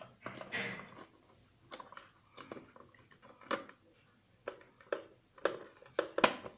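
Scattered clicks, taps and rustles of hands handling a homemade plastic gearbox and fitting a wire's plug into it.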